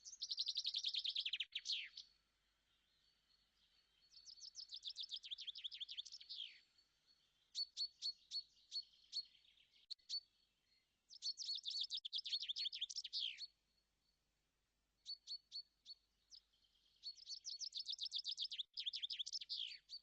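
A songbird singing in repeated phrases of fast, high trilled notes, several ending in a quick downward sweep, with short pauses between phrases.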